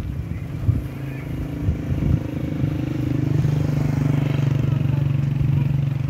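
A motor vehicle's engine running at a steady pitch, growing louder about two and a half seconds in and then holding level.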